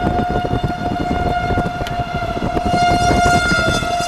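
A steady, unwavering warning tone with strong overtones, held over the low rumble of a moving vehicle and wind.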